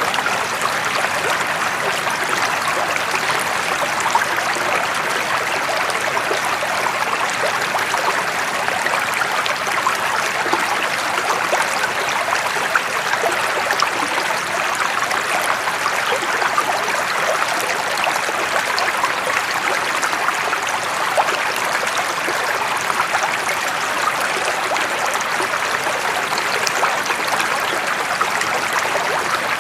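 Running water flowing steadily: an even, continuous rush with fine splashing and trickling.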